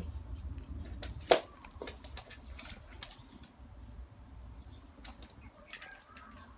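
Hot glue gun and satin ribbon being handled as glue is applied to the ribbon's end. One sharp knock about a second in, then soft rustling and small clicks over a low hum.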